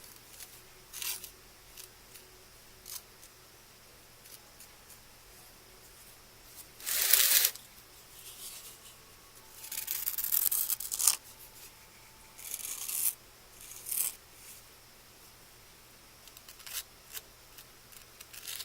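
Jumbo wooden popsicle stick spreading and scraping a gritty sand-and-glue paste over a painted wooden cross, in short intermittent scrapes. The longest come about seven seconds in and from about nine and a half to eleven seconds.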